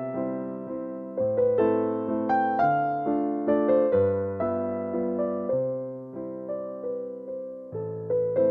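Background music: a piano playing a slow, gentle melody over chords, each note struck and fading away.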